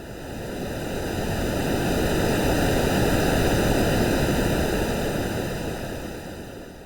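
Synthesized ocean-wave sound: one rushing swell of surf noise that builds over about three seconds and then ebbs away near the end.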